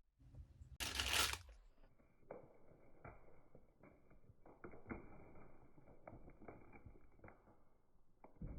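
A brief loud rustle about a second in, then light clicks, knocks and rustling as items are handled and set down.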